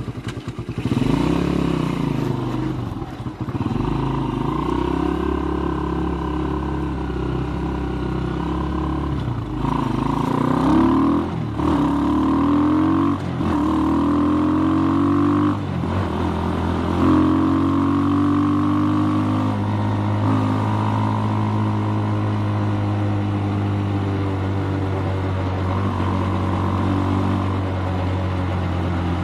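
Skygo Boss 150 motorcycle with a bottle pipe exhaust and Nibbi PE26 carburettor, pulling hard on the highway. The engine note climbs several times with brief dips between, as it shifts up through the gears, then holds a steady pitch at cruising speed for the second half.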